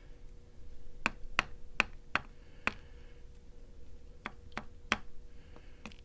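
Small brass lock pins and the plug of a BEST 7-pin small-format interchangeable core clicking lightly as they are handled over a pin tray: about nine sharp clicks, five in a quick run in the first half and four more in the second half.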